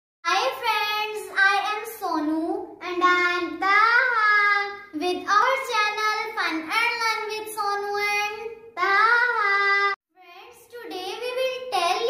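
A young girl's voice talking in a lively, sing-song way, with a brief pause about ten seconds in.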